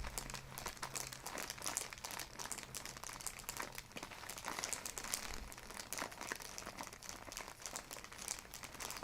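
Crinkling and rustling on a chiropractic treatment table as the patient shifts position: a steady run of many small crackles that cuts off abruptly at the end.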